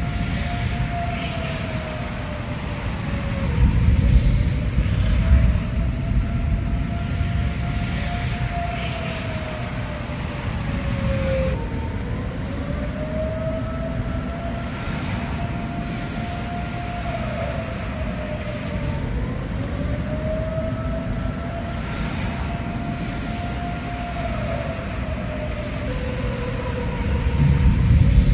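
Outdoor tornado warning siren sounding a steady wail for a tornado warning, its pitch dipping and recovering every five to seven seconds. Under it runs a steady low rumble that swells about four seconds in and again near the end.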